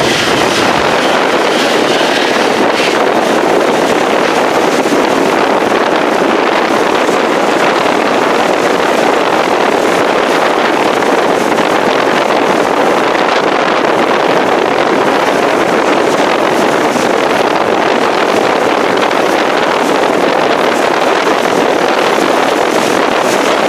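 Steady rushing noise of wind and water passing a paddle steamer under way at sea, heard from its deck.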